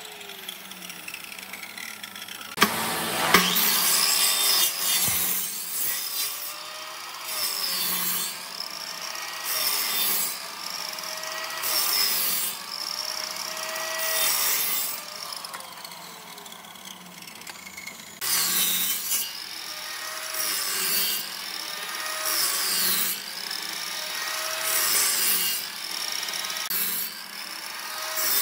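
Electric miter saw running and dropping repeatedly into a wooden board, cutting a row of shallow parallel kerfs about one every two seconds. The motor's pitch dips as the blade bites into each cut and recovers as it lifts out.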